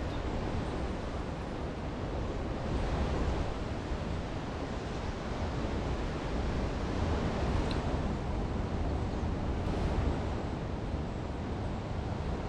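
Ocean surf washing steadily on a beach, with wind rumbling on the microphone.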